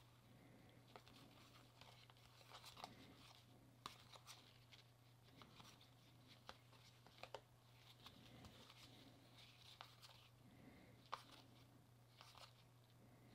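Faint soft clicks and rustles of baseball trading cards being slid one by one off a stack from one hand to the other, over a low steady hum.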